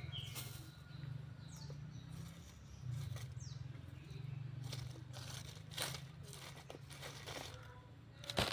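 Outdoor garden ambience: irregular rustling and scraping, with a few short, quick bird chirps, over a steady low hum.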